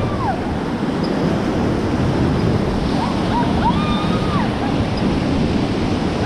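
Whitewater river rapids rushing steadily, with wind buffeting the microphone. A voice calls out faintly about three seconds in.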